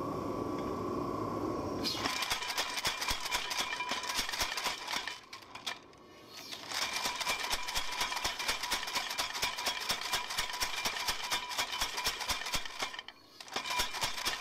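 Mechanical power hammer: its drive runs for a couple of seconds, then the ram strikes hot steel in rapid, even blows. The blows pause briefly about five seconds in and again near the end.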